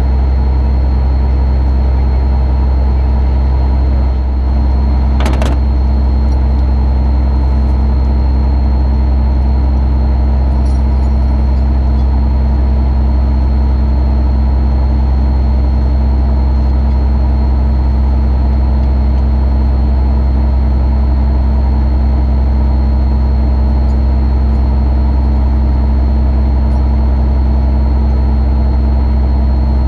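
Tow truck's engine running steadily, a loud, even drone heard close up through the truck it is mounted on, with a faint steady whine above it. One short sharp clank about five seconds in.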